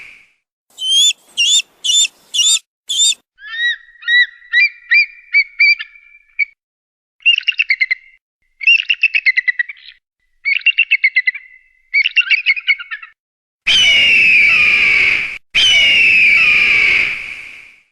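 Eagle and hawk calls. First come a run of five short, high piping notes, then a series of shorter calls and several rapid chattering trills. Near the end come two long, loud screams that slide down in pitch.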